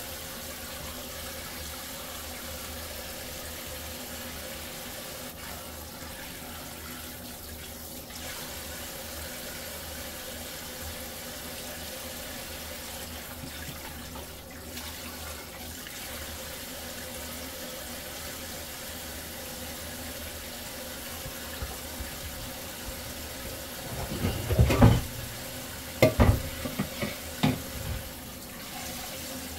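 Kitchen tap running steadily into a stainless-steel sink while fish are rinsed under the stream. Near the end come several loud knocks and clatters.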